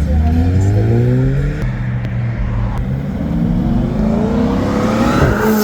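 Car engine and exhaust accelerating hard: the pitch climbs, drops as it shifts up about a second and a half in, then climbs again as the car passes close and loud near the end.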